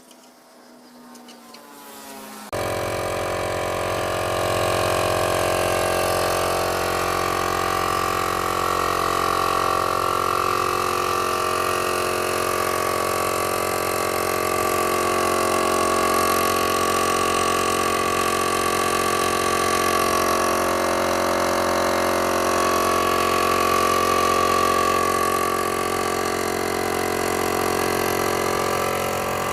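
Restored blower switched on about two and a half seconds in, its motor and fan then running steadily with a constant hum and whine.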